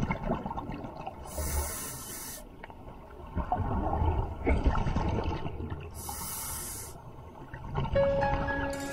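Scuba diver breathing underwater through a regulator: a hissing inhalation, a longer bubbling exhalation, then a second hissing inhalation. Music comes in near the end.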